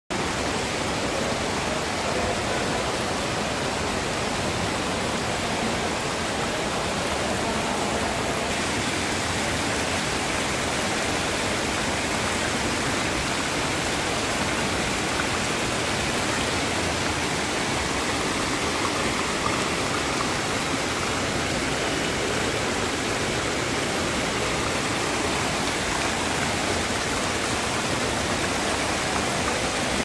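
Decorative fountain: water jets arc from a row of nozzles and splash into a shallow stone basin with a steady rush and patter.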